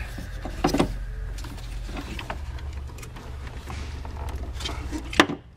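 Metal parts of an ABS modulator's intermediate solenoid block clicking and scraping as it is worked loose by hand. A sharp clack comes about five seconds in as the block slides free.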